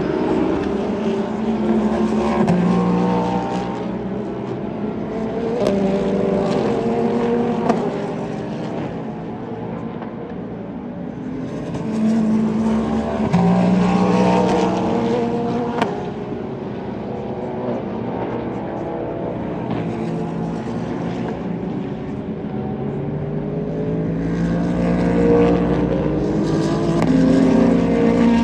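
Endurance race cars passing one after another at racing speed, their engine notes swelling as each car nears and fading as it goes by, several times over.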